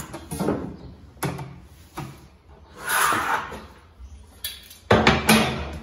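Pencil drawn against a steel square on an MDF cabinet panel to mark lines, with a scrape about three seconds in. Several sharp knocks and clatter of tools being handled are heard, the loudest about five seconds in.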